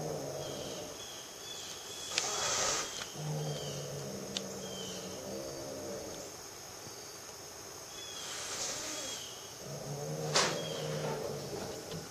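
A cat growling in low drawn-out rumbles of about a second each, broken twice by a long hiss, and a short sharp click near the end.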